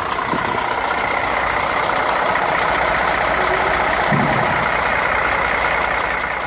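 Sterling heavy truck's diesel engine idling steadily, with a fast, even clatter.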